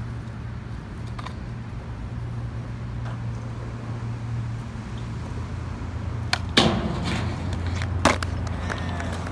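Skateboard wheels rolling on concrete, a low rumble growing louder as the board approaches. Then two sharp clacks of the board on the ledge and ground, one about six and a half seconds in and another a second and a half later.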